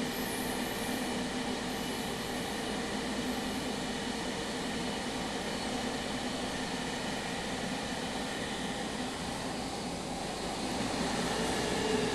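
Steady hum and whir of a JR Kyushu 305 series subway train's air conditioning and onboard equipment while the train stands at a station, with a few faint high chirps in the first second. The level grows slightly louder near the end.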